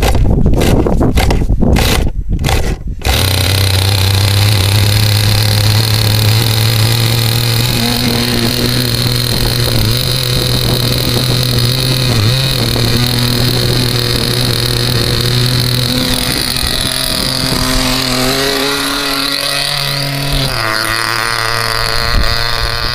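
Hammerhead RC boat's .15 (2.5 cc) nitro glow engine starting: a few short choppy spurts, then it catches about three seconds in and runs steadily. Its note changes over the last few seconds as the boat gets under way on the water.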